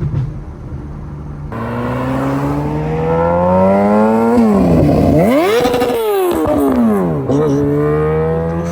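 BMW 335i turbocharged inline-six accelerating hard past, revving up through the gears. The engine note climbs, drops sharply about four and a half seconds in and again about seven seconds in as it shifts up, then climbs again.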